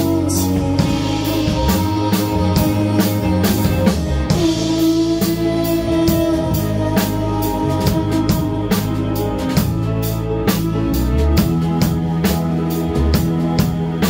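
A live band playing a song: a drum kit keeps a steady beat under electric guitar, with a woman singing into a microphone.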